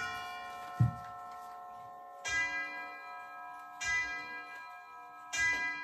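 Soft background music of sustained bell-like chime notes, a new note struck about every second and a half. A single short low thump comes about a second in.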